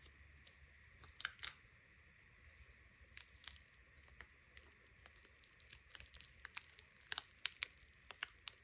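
Faint crackles and clicks of a flexible silicone mould being peeled off a cured resin casting. A few short clicks come about a second in, and a denser run of them in the last few seconds.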